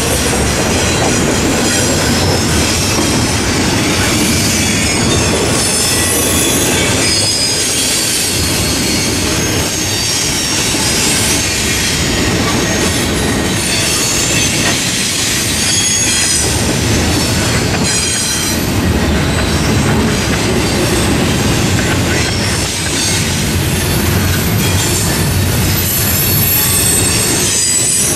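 Double-stack intermodal freight cars rolling past close by, with a coal train moving on the track behind: a loud, steady rumble and clatter of steel wheels on rail, with thin high-pitched wheel squeal coming and going.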